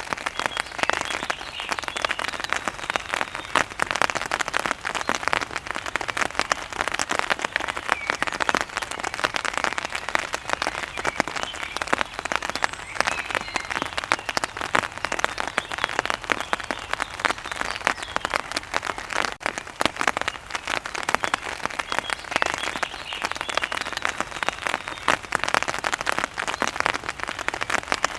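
Heavy rain pattering densely and steadily on a surface, with a few faint bird chirps now and then.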